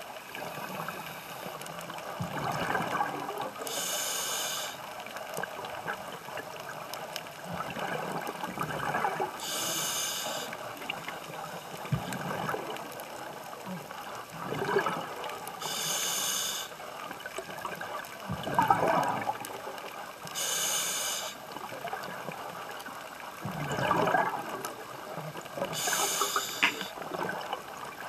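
Diver breathing through a scuba regulator underwater: a hissing inhale comes about every five to six seconds, each one after a bubbling exhale.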